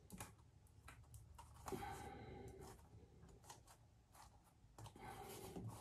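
Faint handling of glued leather pieces being pressed together by hand: light clicks and two short creaks, about two seconds in and near the end.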